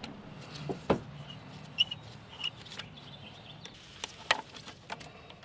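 Hand tools clicking and tapping against metal fasteners and brackets in a car's engine bay as bolts are worked loose: a few scattered sharp clicks, the loudest about a second in and just after four seconds.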